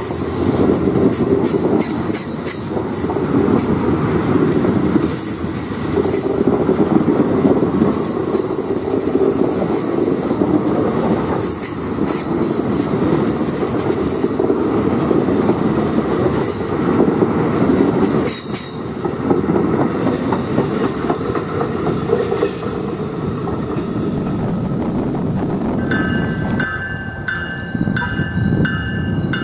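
Amtrak passenger cars rolling past: a steady rumble of steel wheels with rapid clicking over the rail joints. Near the end a bell starts ringing in steady strokes.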